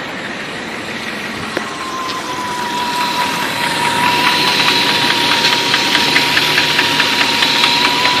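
BMW M60 V8 idling with a rapid, even ticking from the valvetrain: lifter noise, typical of hydraulic lifters that are not holding oil pressure. The ticking and a steady high whine grow louder a few seconds in.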